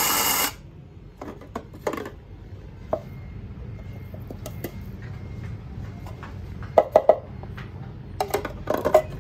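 Mini 600N coffee grinder's motor running, then stopping about half a second in. Scattered clicks and knocks follow as the black grounds cup is taken off and handled, with three sharp knocks about seven seconds in and a few more near the end.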